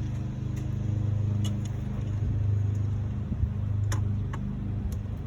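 A steady low mechanical hum that swells and fades slightly, with a few light, sharp clicks of hand tools working on the engine-bay hose fittings, two of them close together near the end.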